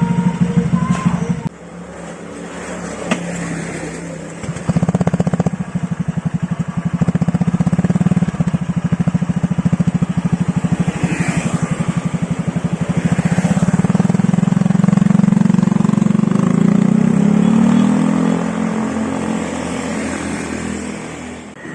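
Honda Vario 150 scooter's single-cylinder engine running through an aftermarket ABF Racing standard-style racing exhaust, its firing pulses plainly heard. The sound drops about a second and a half in, builds up again a few seconds later, and near the end the pitch rises, then eases off.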